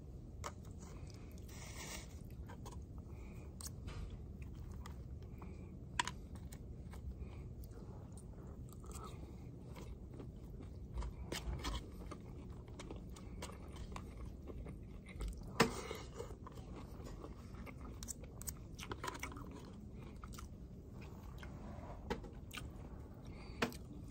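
A person chewing a meal of rice and grilled pork chop, with plastic fork and spoon clicking and scraping against a plate and sauce cup. There are scattered sharp clicks, with the loudest about a quarter of the way in, past halfway, and near the end, over a steady low hum.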